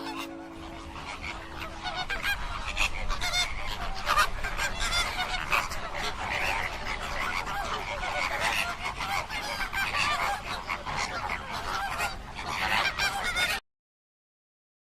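A large flock of birds honking and calling together, a dense goose-like chorus of overlapping calls that cuts off suddenly near the end.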